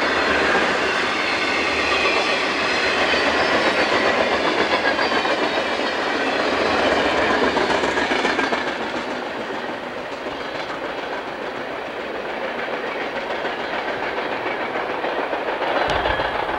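Freight train of tank cars passing close at speed: a loud, steady rush of wheel and car noise with fast clicking of wheels over the rails. It eases a little about halfway through and swells again near the end.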